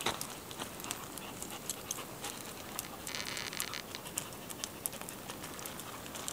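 Footsteps and dogs' paws crunching on a loose gravel track: irregular small crunches and clicks. A short high buzz about three seconds in.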